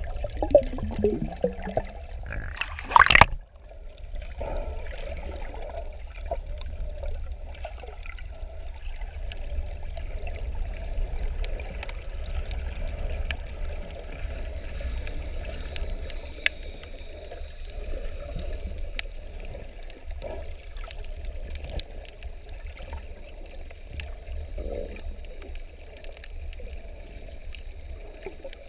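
Water sloshing and gurgling, heard muffled underwater over a steady low rumble, with one brief loud rush of water about three seconds in.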